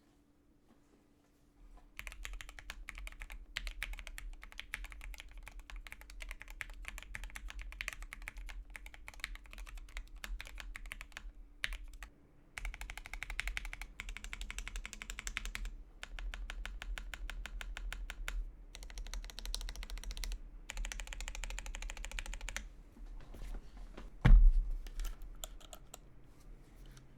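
Mechanical keyboard being typed on fast in long runs of clicky keystrokes, with short pauses between runs, then a few slower key presses and one loud thump a few seconds before the end.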